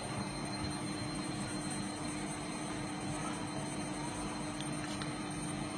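Steady background hum and hiss with one constant low tone, and no clear event standing out.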